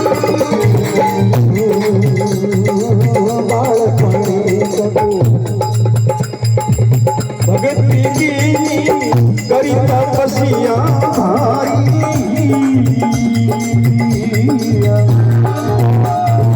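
Indian folk devotional music: a wavering melodic line over a steady low drone, with a busy, continuous rhythm of shaken and struck percussion.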